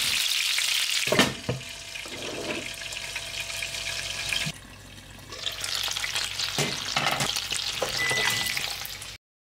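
Chicken pieces, floured and seasoned, sizzling as they pan-fry in hot oil in a frying pan, with a couple of light knocks about a second in. The sizzle drops lower for a moment in the middle, then cuts off just before the end.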